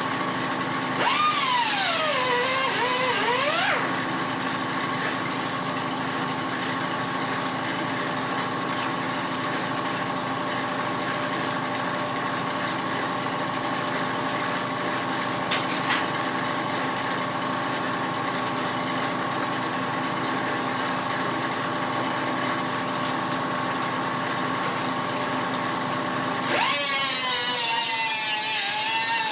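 A machine runs steadily for most of the stretch, a constant hum with a held whine over it. Guitar music plays briefly at the start and again near the end.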